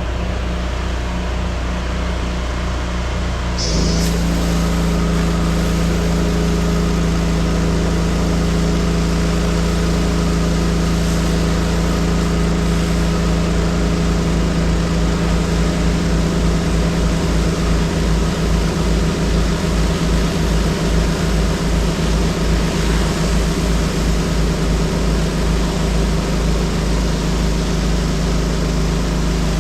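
Pressure washer's engine and pump running under load with the hiss of high-pressure water spray, delivering full pressure after bad ball valves were replaced. About four seconds in it gets louder and the hiss fills out as the spray comes on fully.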